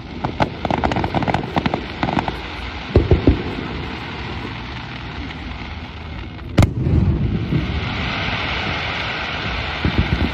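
Aerial firework shells bursting: several booms in the first few seconds, then one sharp loud bang about six and a half seconds in. A steady hiss follows as the gold stars fall, with more booms near the end.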